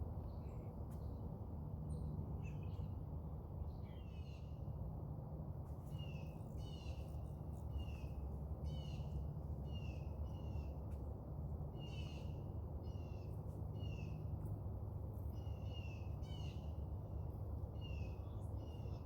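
A bird calling over and over, short harsh calls about once a second, over a steady low background rumble.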